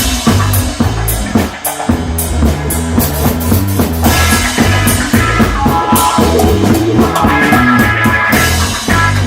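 Funk-rock band jam: drum kit and bass keeping a steady groove under guitar, with a short break in the bass about a second and a half in and sustained midrange chords from about four seconds on.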